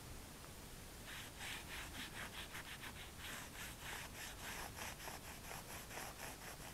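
A cloth rag rubbed back and forth against the rubber sidewall of a tyre, wiping off fresh spray-paint overspray, in quick, even strokes that start about a second in.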